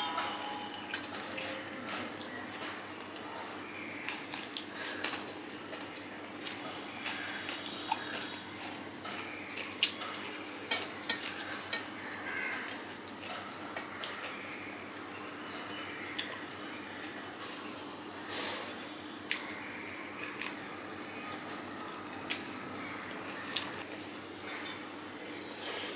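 Eating by hand from steel plates: chewing and mouth smacks, with fingers mixing rice and picking at fish on the plates, giving irregular sharp clicks and soft wet scrapes. A faint steady hum runs underneath.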